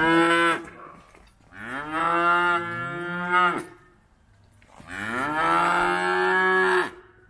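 Calves mooing: three loud, drawn-out calls. The first ends about half a second in; the other two each rise in pitch at the start and last about two seconds.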